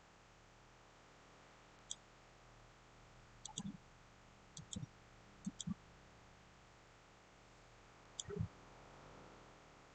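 Computer mouse clicking, about ten sharp clicks scattered over several seconds, several in quick pairs, over faint steady hiss.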